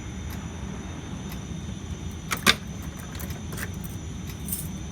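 Steady low background hum with faint ticks, and a couple of sharp clicks about two and a half seconds in.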